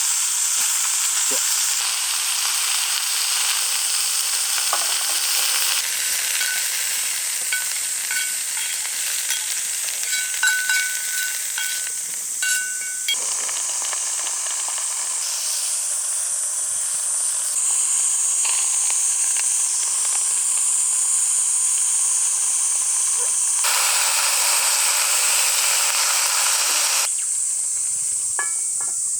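Vegetables sizzling and frying in a pan over a campfire, a steady hiss, with a few light taps of a utensil against the pan in the middle.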